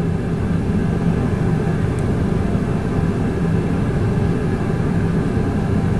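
Steady machine hum with an even whir, holding level without a break.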